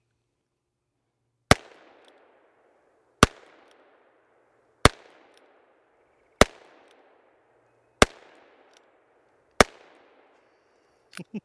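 Six shots from a Ruger Super Wrangler single-action revolver firing .22 Magnum, evenly spaced about a second and a half apart, emptying the six-shot cylinder. Each sharp crack trails off in a short echo.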